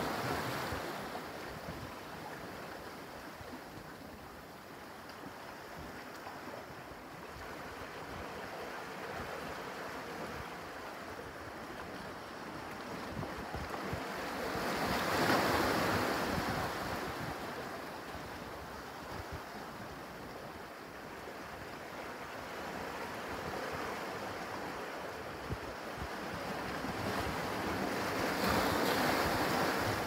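Small ocean waves washing in over shoreline rocks, a steady wash of surf that swells louder as a bigger set breaks about halfway through and again near the end.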